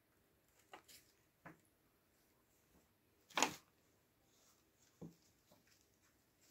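A few faint rustles and short scuffs in a quiet room. The loudest comes about halfway through and lasts about a quarter of a second.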